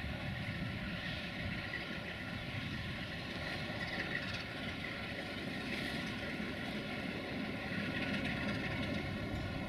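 Sulzer diesel engine of a CFR 060-DA (LDE2100) diesel-electric locomotive running under load as it hauls a freight train slowly forward. Its turbocharger whistles, giving steady high tones over the engine's rumble.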